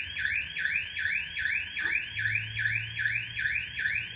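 Electronic alarm siren sounding steadily: a rising whoop repeated about four times a second.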